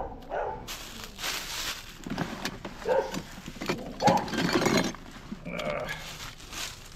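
A dog barking about five times, a second or more apart, over loud rustling of canopy fabric and plastic being handled.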